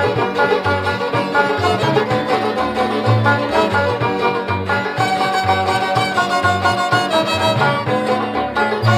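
Background music with fiddle and other strings over a steady, repeating bass line.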